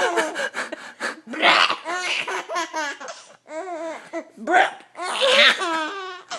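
Six-month-old baby laughing in a string of short, high-pitched bursts, with a couple of louder breathy laughs.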